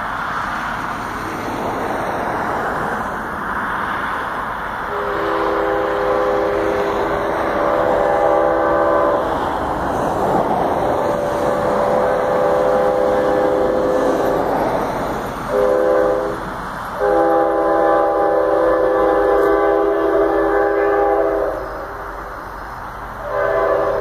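CSX locomotive's multi-tone air horn sounding for a grade crossing: a chord of several tones blown long, long, short, long, then a short blast near the end, over a steady rumble from the approaching train.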